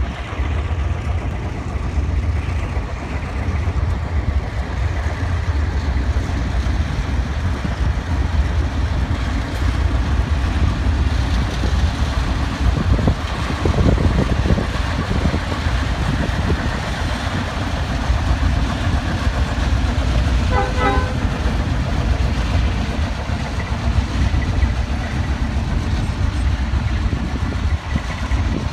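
Diesel-electric locomotives of the 44 and GM classes pulling a grain train away from a stop, their engines running under power in a steady deep rumble as the consist passes. A brief toot sounds about twenty seconds in.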